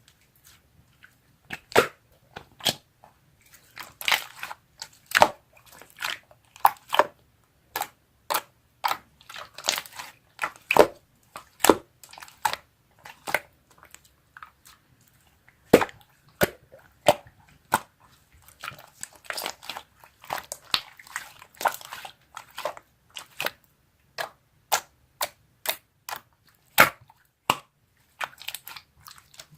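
Slime being squished, pressed and poked by hand, giving an irregular run of sharp sticky clicks and small air-bubble pops.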